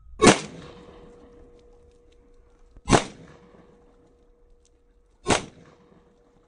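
Three 9mm pistol shots, about two and a half seconds apart, striking a soft armor panel backed by a plastic bucket; each is a sharp crack with a short echo.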